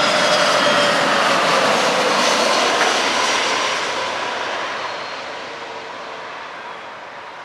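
Jet airliner passing close by: loud engine noise with a whine that falls slightly in pitch, then fading steadily over the last few seconds as it moves away.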